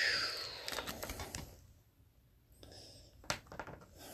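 Rustling and crinkling of a foil hockey-card pack wrapper and cards being handled, in bursts with a short quiet gap in the middle and a sharp click about three seconds in.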